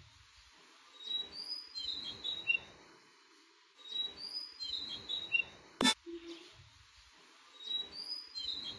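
Wooden drawer sliding in and out on its metal runners, three faint runs a few seconds apart, each with thin high squeaks.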